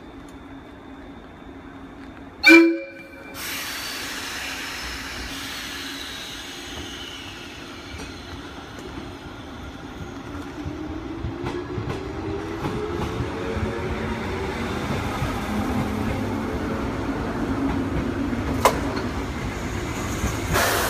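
A JR 185-series electric train gives one short horn blast about two and a half seconds in, then pulls away from the platform. Its motors whine, rising steadily in pitch as it gathers speed, with wheels clattering over the rail joints and a single sharp clack near the end.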